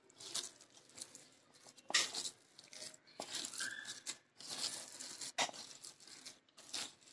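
A bare hand mixing and squeezing a crumbly mixture of ground soya chunks, spices and gram flour, giving irregular, soft scraping and rustling strokes with short gaps between them.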